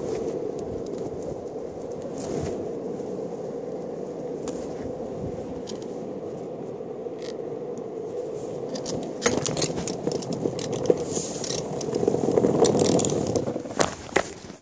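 Longboard wheels rolling over asphalt: a steady rumble with a hum in it. About two-thirds of the way through, clicks and scrapes join in, loudest shortly before the rolling sound drops away near the end.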